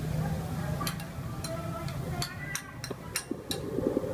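Scattered sharp clicks and clinks of a knife and cleaver against a wooden cutting board and a small ceramic bowl during food preparation, with a quick run of duller knocks near the end. A steady low hum sits under the first half.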